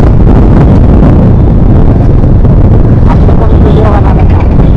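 TVS Apache RTR 160's single-cylinder engine and exhaust running while the motorcycle is ridden, mixed with heavy wind buffeting on the microphone.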